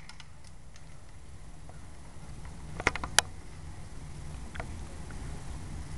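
A few sharp clicks over a steady low rumble, with two close together about three seconds in.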